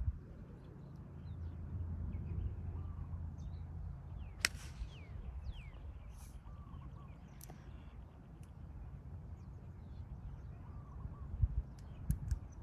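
Wind rumbling on the phone's microphone, with birds calling now and then and a few sharp clicks, one of them a golf club striking the ball on a long approach shot.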